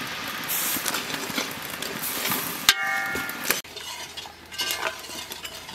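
Metal spoon scraping and clinking against an aluminium cooking pot while ingredients are stirred into steaming liquid. A sharp knock comes nearly three seconds in, followed by a short ringing tone, then lighter clinks.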